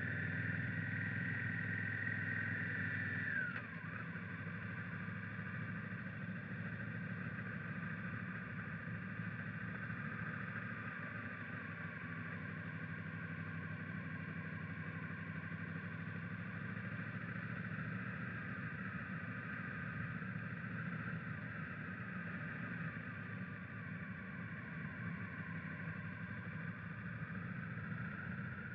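Honda Africa Twin motorcycle's parallel-twin engine running under way. Its pitch and loudness drop suddenly about three and a half seconds in, then hold fairly steady with slow rises and falls, climbing again near the end.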